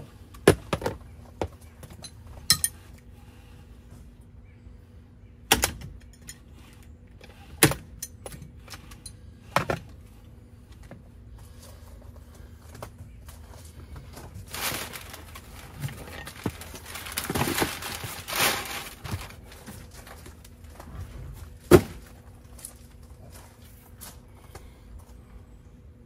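A new car seatbelt and its packaging being handled: a string of sharp clicks and knocks, with a few seconds of packing paper rustling from about fifteen seconds in.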